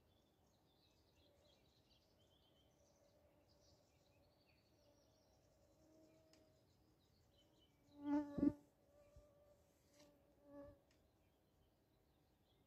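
A flying insect buzzing close to the microphone: a faint steady hum that swells into one loud pass about eight seconds in and a shorter, quieter one a couple of seconds later. Faint birdsong in the background.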